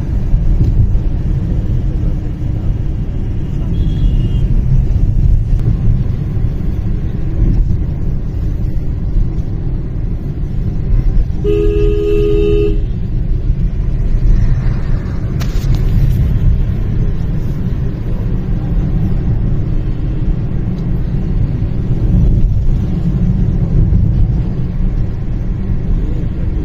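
Steady low road and engine rumble heard inside a moving car, with a vehicle horn sounding once for about a second near the middle.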